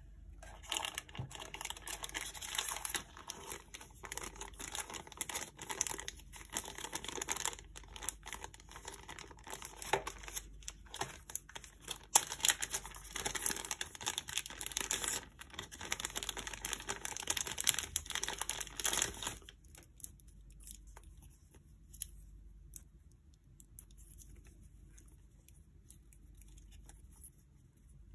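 Clear plastic bag crinkling and rustling as it is handled and opened around a leather watch strap, stopping about two-thirds of the way through; after that only a few faint light ticks remain.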